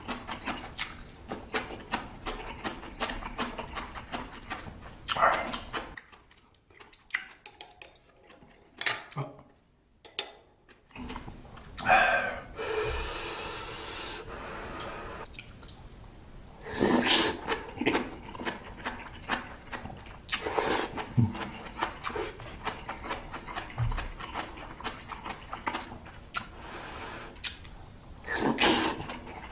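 Close-miked eating sounds: instant ramyeon noodles being chewed and slurped, with wet smacking and clicking throughout and several louder slurps, a quieter pause about a quarter of the way in.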